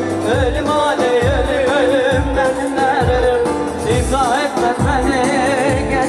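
Turkish folk dance music played by a band: a wavering, ornamented melody with singing over a low drum beat about once a second.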